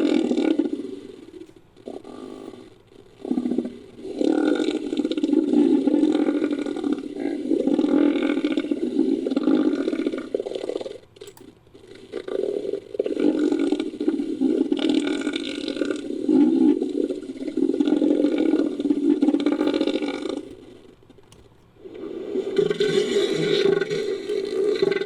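Made-up creature calls built from elephant seal vocalizations: deep, throaty calls low in pitch. A few short calls come first, then three long calls of about six to eight seconds each, separated by short pauses.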